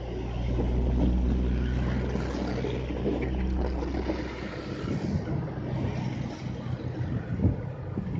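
A motor vehicle's engine hum that drops away about halfway through, followed by gusts of wind buffeting the microphone.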